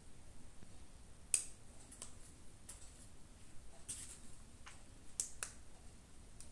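Spice paste being stir-fried in mustard oil in a stainless steel pan with a metal spatula: a scattered series of sharp clicks and ticks, the loudest just over a second in. This is the masala being fried down before the vegetables go in.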